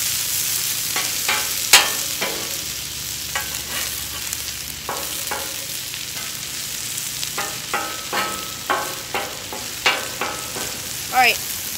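Shaved steak and onions sizzling on a hot flat-top griddle while a metal spatula scrapes and taps against the steel plate, chopping and turning them. The sizzle is a steady hiss, broken by many sharp, irregular clicks from the spatula.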